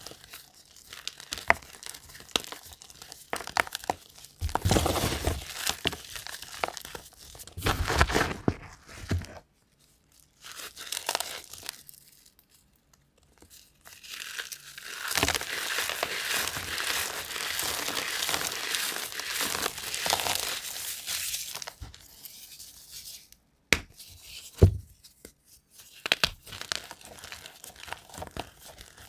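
Blocks of gym chalk, fresh white and dyed, crushed and crumbled between bare fingers: crisp crackling crunches and dry powdery crumbling. Several crushes come with short pauses, then a long stretch of steady crumbling midway, and two sharp snaps a little before the end.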